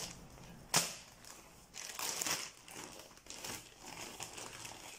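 Plastic courier satchel rustling and crinkling as it is handled, in irregular bursts, with a sharp crackle about three quarters of a second in.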